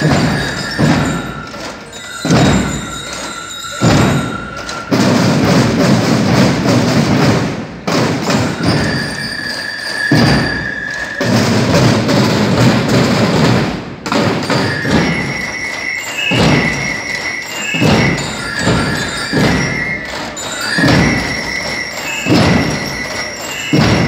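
Massed marching drums of a banda de guerra: heavy bass-drum beats about once a second, with two long dense snare rolls in the middle, and high ringing tones over the top.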